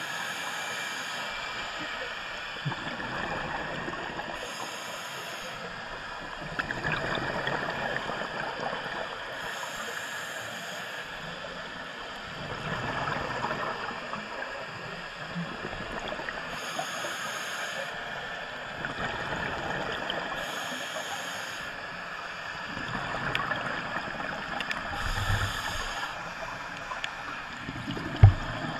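Scuba regulator breathing underwater: a hissing inhale through the demand valve every few seconds, alternating with gurgling bursts of exhaled bubbles. A sharp knock sounds near the end.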